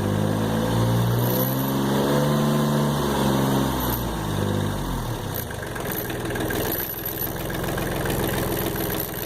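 Kubota L245 tractor's diesel engine running, revved up over about two seconds and let back down to a steady idle.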